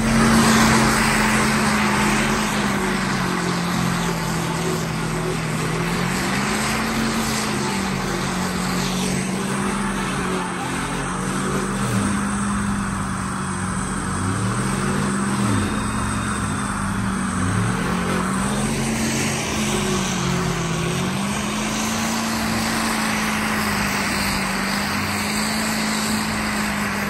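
Mud truck engine running hard through a mud pit, its note rising and falling with the throttle over a constant rushing noise.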